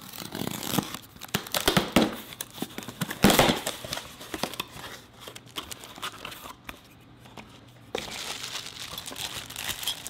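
Packing tape torn off a cardboard box and the cardboard flaps handled, then plastic bags crinkling as parts are pulled out and unwrapped. The loudest rustles and tears come in the first few seconds, and a steadier crinkling starts near the end.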